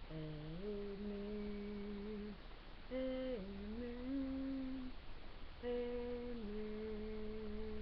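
A woman humming a slow tune in three phrases of long held notes that step up and down in pitch, trying to recall a half-remembered song's melody.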